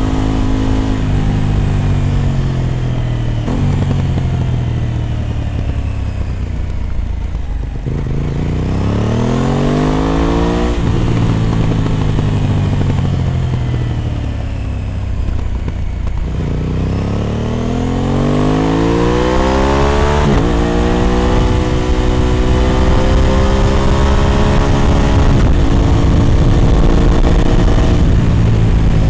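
Aprilia RS 660's parallel-twin engine through an SC Project exhaust, accelerating through the gears. The revs climb and drop sharply at an upshift about ten seconds in and again about twenty seconds in, then hold steady at a cruise.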